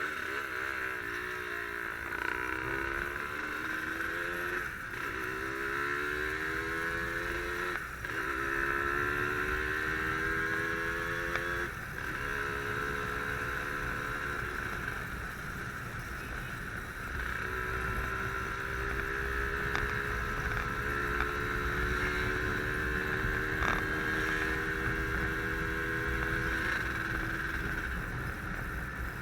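Two-stroke single-cylinder engine of a Yamaha RD135 motorcycle pulling through the gears. Its pitch rises and drops back at each of about four upshifts in the first twelve seconds, then holds nearly steady at cruising speed, easing slightly twice.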